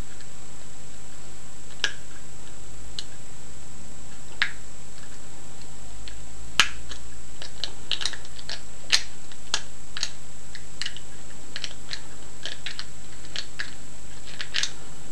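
Small metallic clicks and scrapes of a wire pick working inside an old lever padlock, scattered at first and coming more often from about six seconds in. Underneath runs a steady electrical hum.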